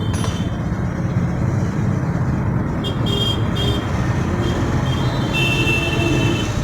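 Steady rumble of motor vehicles running. Short high horn toots come about three seconds in and again near the end.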